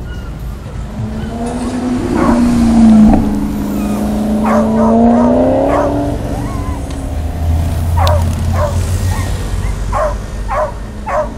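Maserati GranTurismo MC Stradale's V8 running as the car drives past, its note swelling and then falling away. From about the middle onward a dog barks repeatedly in short single barks.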